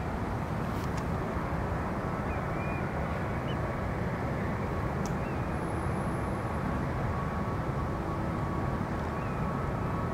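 Steady distant jet engine rumble from airliners on the runway, carried across open water, with a few faint bird chirps.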